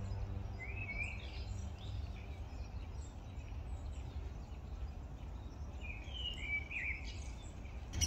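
Wild birds calling: two short phrases of quick chirping notes that sweep up and down, one about half a second in and another about six seconds in, over a steady low rumble of background noise.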